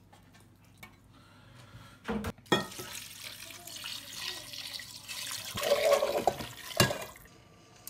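Water running and splashing in a kitchen, with a few knocks about two seconds in and a sharp click near the end.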